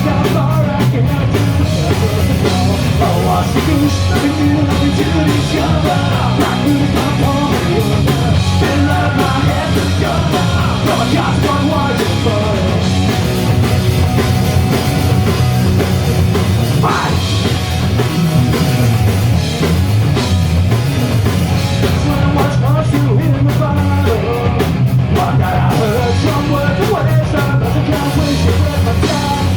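Punk rock band playing live: loud distorted guitars, bass and drum kit, with some singing.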